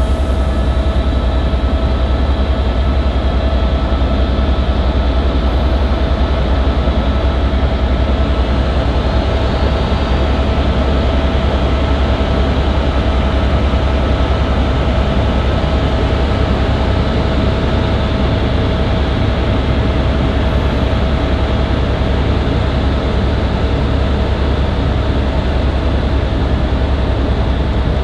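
Helicopter in flight heard from inside the cabin: a steady, loud low rotor drone with a few steady whining tones above it.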